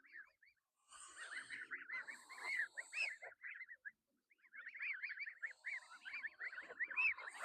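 Birds chirping rapidly, many short arching chirps a second, in two runs with a brief pause about four seconds in.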